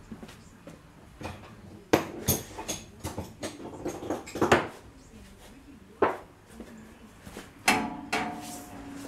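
Metal hand tools clinking and clanking: a run of sharp knocks and clicks from about two to five seconds in, another about six seconds in, and a louder clank that rings briefly near the end.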